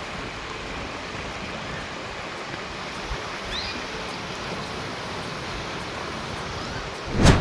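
Steady rushing of fast-flowing monsoon water, a stream or waterfall running hard. Near the end a brief, much louder whoosh swells up.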